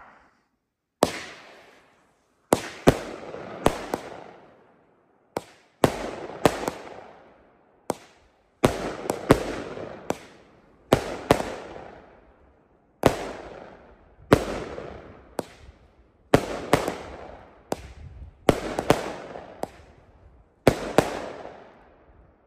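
DC 200-gram consumer firework cake firing shot after shot, starting about a second in: a run of some twenty sharp bangs, often two close together, each with a long echoing tail.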